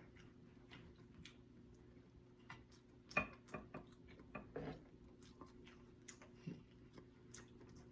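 Soft mouth sounds of eating pork neck bones: a few scattered wet clicks and smacks of chewing, grouped around the middle, over a faint low hum.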